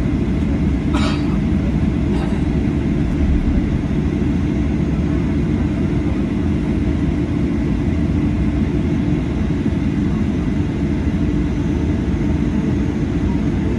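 Steady low rumble of engines and airflow heard inside the cabin of a Boeing 737-800, with a brief click about a second in.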